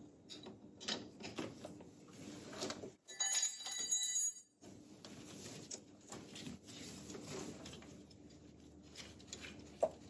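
Faint clicks and knocks of a wrench and gloved fingers working the clutch cable adjuster on a VW Mk1 Rabbit, loosening it to give the cable free play. About three seconds in there is a louder stretch of about a second and a half of high, steady ringing tones.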